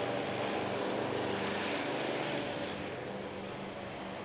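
Airlander 10 hybrid airship's propeller engines running steadily on the ground: a droning hum under a rushing hiss that swells around the middle and then eases off a little.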